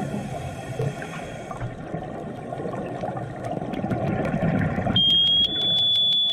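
Low underwater rumble and hiss, then about five seconds in a loud, steady high-pitched tone starts suddenly and holds, stepping up slightly in pitch near the end: an active sonar pulse heard by a diver underwater.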